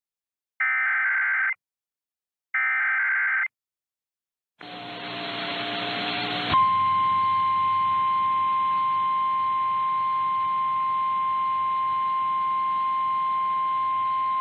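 Emergency Alert System broadcast on NOAA Weather Radio: the last two of three short buzzing SAME header data bursts, then after a pause the transmitter carrier comes up with hiss and the steady single-pitch warning alarm tone begins about six and a half seconds in and holds. The alert tones announce a new warning message.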